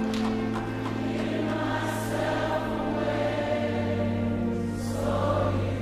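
Gospel choir singing long, sustained chords of a worship song, with a brief sung "s" hiss twice, over musical accompaniment.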